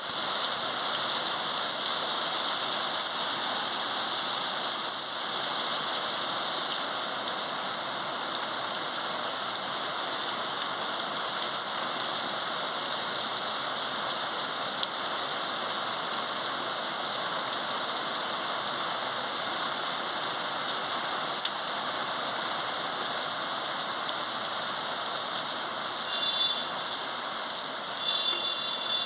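Rain falling steadily, an even hiss of drops on surfaces, with a couple of brief faint high tones near the end.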